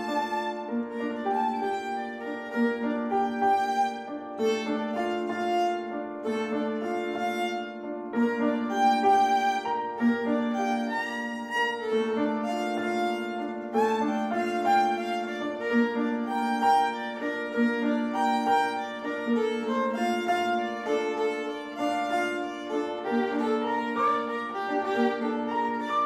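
Fiddle playing a continuous, flowing melody with no accompaniment, its notes changing every fraction of a second without a break.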